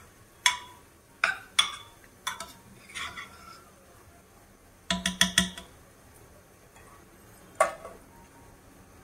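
Metal spoon clinking and knocking against a cooking pot. There are a few separate strikes, then a quick run of four or five about five seconds in, and one more near the end.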